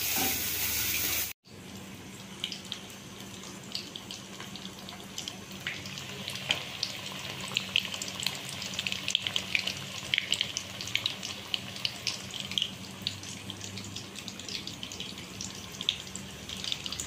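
Marinated chicken pieces deep-frying in hot oil in an aluminium kadhai: a steady sizzle with frequent crackles and pops. It breaks off briefly about a second and a half in and resumes.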